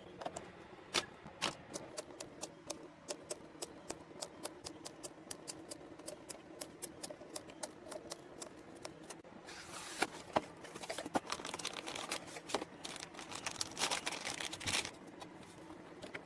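Small sharp clicks and taps, several a second, with some rustling, denser from about ten seconds in: computer parts being handled and clipped into place during a PC build.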